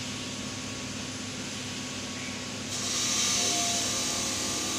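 Steady electrical hum of a paper roll slitter rewinder at rest. About two and a half seconds in, a loud, steady hiss starts suddenly and carries on.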